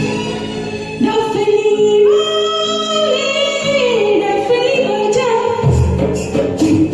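A woman singing long, held, gliding notes of a Hindi film song over a recorded backing track; about five and a half seconds in, a steady drum beat with sharp hand-drum strikes comes in.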